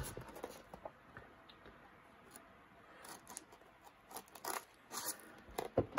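Folding knife blade slitting the seal sticker on a small cardboard box, heard as a few short scrapes and rustles of blade and cardboard in the second half, after a quiet start.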